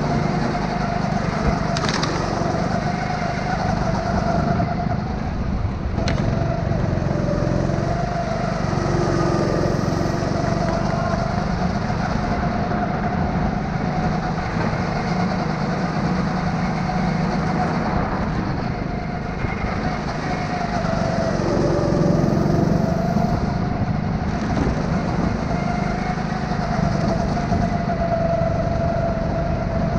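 Go-kart running at racing speed, heard from onboard: a steady engine drone whose pitch dips into the corners and climbs again on the straights, with a few sharp ticks.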